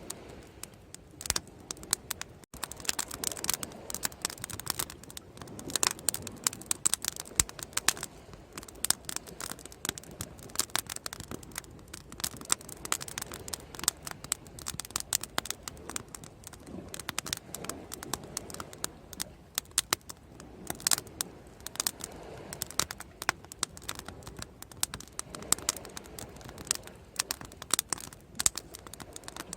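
Wood bonfire crackling: dense, irregular sharp snaps and pops over a soft steady hiss.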